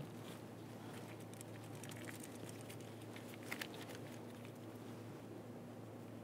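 Small clicks and snips of a hand wire stripper/crimper working the insulation off a thin wire: a sharp click at the start, scattered light ticks, and a pair of clicks about three and a half seconds in, over a faint low steady hum.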